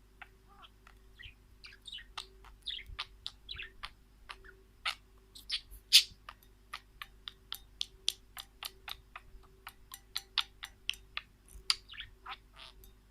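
Small birds chirping: many quick, short, sharp calls overlapping, with one louder chirp about six seconds in.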